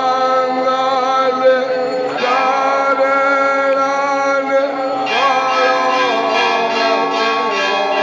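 Devotional aarti music: a singer holding long, drawn-out notes with a slight waver, starting new phrases about two seconds in and again about five seconds in.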